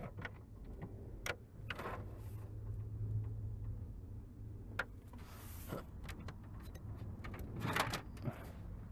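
Scattered clicks, taps and rustles of plastic steering-column trim and hand tools being worked, with a brief hissing rustle a little past halfway, over a steady low hum.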